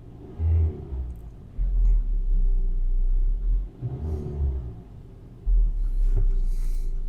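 Car engine revved in surges against the brakes in reverse, a brake-torque test for an intake-camshaft valve-train knock, heard as a low rumble that swells and drops four times.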